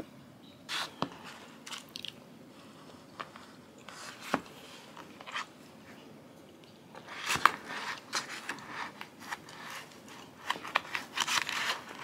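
Someone eating a granola and fruit bowl from a kraft paper bowl: scattered crunches, clicks and crackles, busiest about seven seconds in and again near the end.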